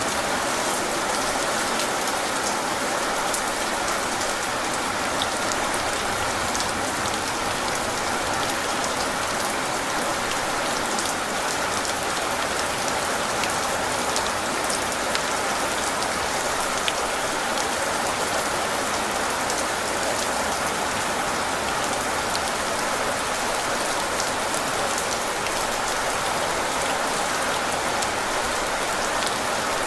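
Steady, even rain, with many individual drops ticking through it.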